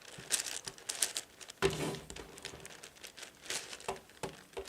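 Layers of a large 11x11x11 Rubik's cube being turned by hand: irregular plastic clicks and rasping scrapes, with a louder burst of turning about one and a half seconds in.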